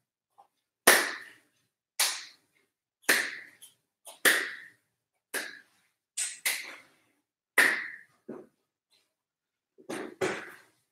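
Sharp hand claps as a man swings his arms together across his chest in a warm-up, about one a second, some in quick pairs.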